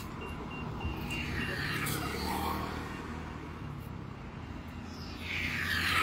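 Road traffic passing close by over a steady low rumble: one vehicle swells past about a second in, and a louder one near the end.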